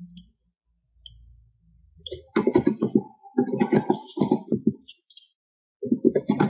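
Computer keyboard and mouse clicking in quick clusters while commands are typed, a dense run from about two to five seconds in and another starting near the end.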